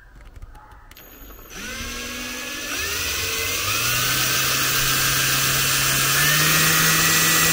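Power drill drilling small guide holes into the camper's wall panel: after a few light clicks, the motor spins up about a second and a half in, its pitch rising in steps, and then runs steadily.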